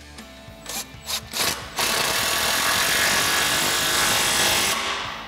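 Milwaukee cordless impact wrench with a 15 mm socket tightening the nut of a steel exhaust band clamp. A few short trigger bursts are followed by about three seconds of continuous hammering, which tapers off near the end as the clamp draws tight.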